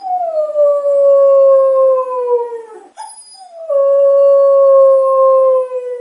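Two long, drawn-out animal howls, each nearly three seconds long and sliding slowly down in pitch, the second following a short pause after the first.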